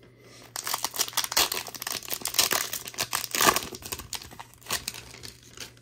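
Foil wrapper of a 2022-23 Panini Prizm basketball card pack being torn open and crinkled by hand: a dense run of crackles starting about half a second in, loudest around three and a half seconds in.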